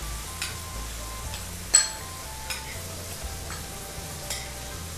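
Stir-fry of eel strips and yellow chives sizzling in a stainless steel wok as the pre-mixed bowl sauce goes in and is stirred through. A metal ladle scrapes and clinks against the wok about five times, with the sharpest clink a little under two seconds in.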